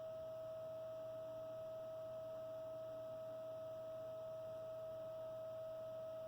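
Steady whine with a faint hum and hiss from the muted left speaker of a Marantz CD-73 CD player: noise from the CDM0 drive (spinning disc motor and lens servo) leaking into the audio while a disc plays, which the owner suspects is a grounding fault.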